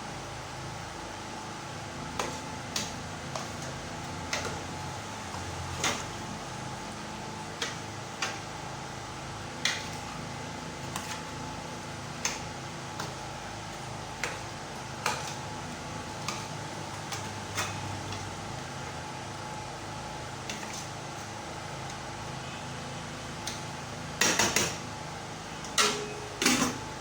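Cooking pots and utensils clinking and knocking now and then over a steady hum, with a louder clatter of pots a few seconds before the end.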